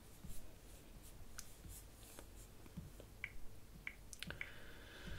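Faint scattered taps and clicks of fingers on a smartphone's touchscreen as it is handled during setup, with a few short high pips in the second half.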